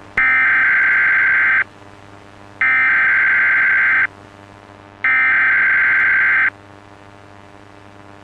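Emergency Alert System header tones: three identical bursts of shrill digital data tones, each about a second and a half long and about a second apart, over a faint steady hum.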